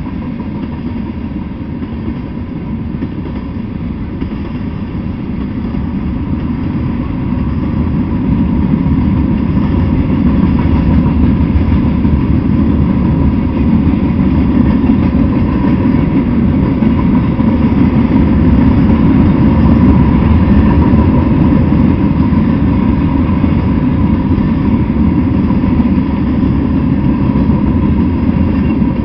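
Freight train rolling past, the steady rumble of its tank cars and gondola cars on the rails, growing louder over the first several seconds and then holding steady.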